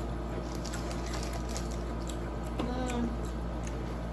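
Dry Very Berry Cheerios crunching as they are chewed: a run of small crisp crackles, with a short closed-mouth "mm" about two and a half seconds in.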